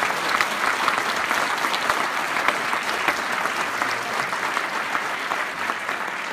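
Large seated audience applauding: dense, steady clapping that eases slightly toward the end.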